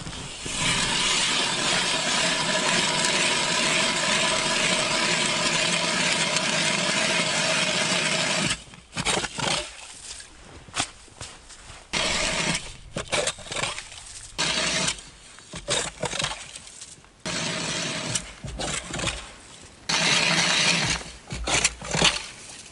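Titanium hand ice auger cutting through river ice: a steady grinding crunch for about eight seconds, then it stops and goes on in short spurts with pauses between them.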